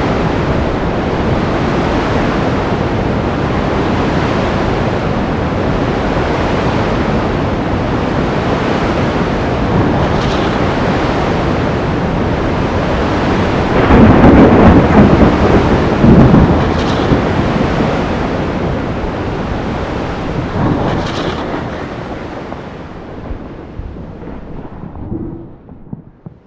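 Sea storm: a steady wash of crashing waves and rain, with a loud roll of thunder about halfway through that rumbles on and slowly dies away near the end.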